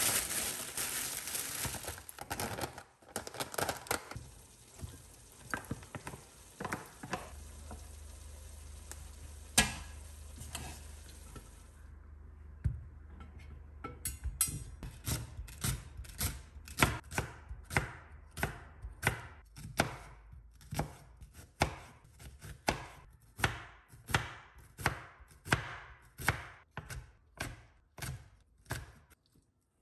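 Kitchen knife chopping vegetables on a wooden cutting board: an onion, then green chili chopped finely, in even knocks about two a second from about halfway through. Before that there is a steady hiss with a few scattered clicks and a low hum.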